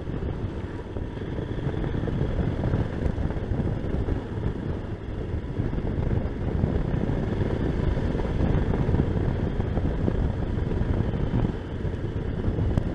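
Wind rushing and buffeting over the rider's microphone on a moving motorcycle, a dense steady rumble with the bike's engine running underneath.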